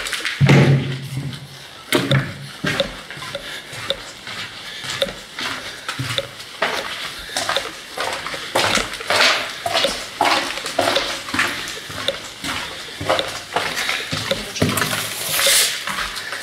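Footsteps crunching and scuffing on gritty debris on a concrete floor, about two steps a second, with a louder scrape near the end.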